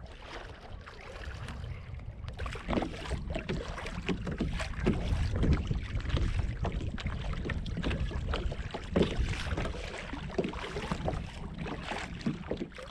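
Small waves slapping and splashing irregularly against a plastic kayak's hull as it moves across choppy water, over a steady low rumble of wind on the microphone.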